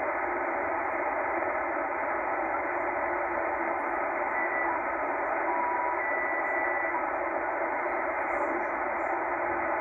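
Steady shortwave static from a Tecsun H-501X receiver in upper-sideband mode, tuned slowly upward through an empty part of the band: a high noise level with no station. A few short, faint whistles come and go around the middle as weak carriers pass by.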